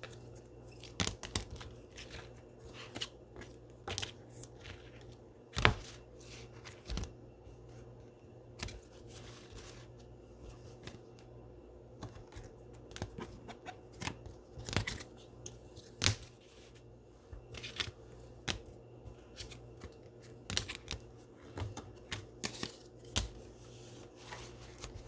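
Trading cards in plastic penny sleeves and rigid top loaders being handled and sorted on a table: scattered light clicks, taps and plastic rustles, a few sharper knocks among them.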